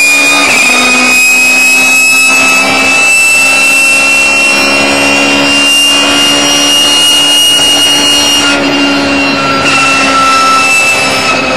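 Race car engine heard from inside the cockpit at high revs under full throttle, with a high whine. Its pitch climbs slowly for most of the time, then eases off slightly about two-thirds through.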